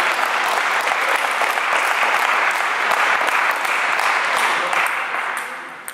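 Spectators applauding a won point in a table tennis match: a burst of clapping that fades out near the end.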